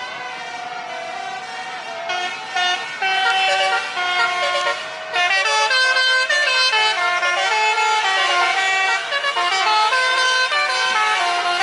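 A tune of horn-like notes, several chords stepping up and down in pitch a few times a second, louder from about two seconds in.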